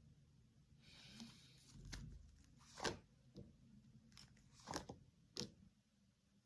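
Near silence with a soft rustle about a second in and a few faint, sharp clicks later on.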